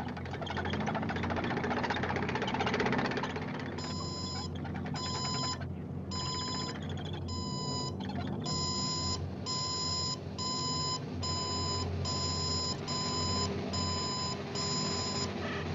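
Cartoon alarm-clock bell ringing: a continuous rattling ring for the first few seconds, then short repeated rings, about one and a half a second, until just before the end.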